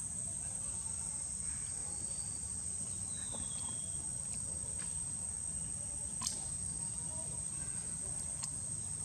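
Steady, high-pitched drone of insects, with a low background rumble and a few faint clicks, the sharpest about six seconds in.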